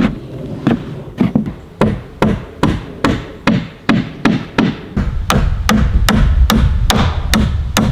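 Hammer driving nails into wooden wall framing, a steady run of strikes about two to three a second. A low rumble comes in underneath about halfway through.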